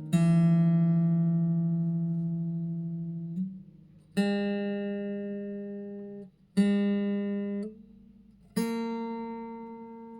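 Background music: slow acoustic guitar chords, each struck and left to ring out and fade, four in turn about two to four seconds apart.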